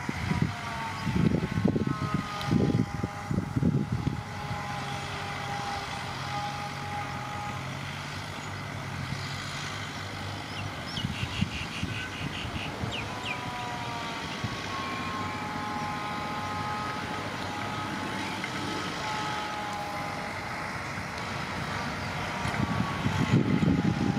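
Komatsu D20A crawler bulldozer at work: its diesel engine runs steadily, with heavy pulsing surges under load in the first few seconds and again near the end. Thin squealing tones slide up and down over it as the machine moves.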